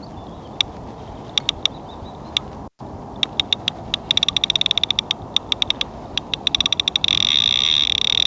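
Fishing reel's clutch (drag) ratchet clicking as a hooked barbel pulls line off the spool: scattered ticks at first, quickening after a few seconds. About seven seconds in, the ticks run together into a continuous buzz as the fish takes line fast. Wind noise on the microphone runs underneath.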